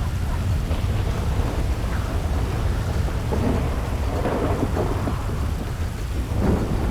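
Hard rain pouring steadily with wind, a deep low rumble running underneath the hiss of the rain and a few louder surges in the second half.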